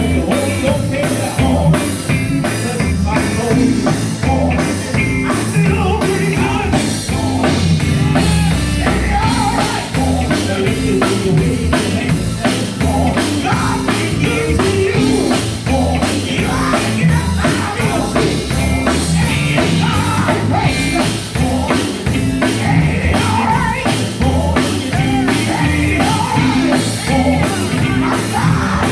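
Live gospel band music with a drum kit keeping a steady beat under singing voices.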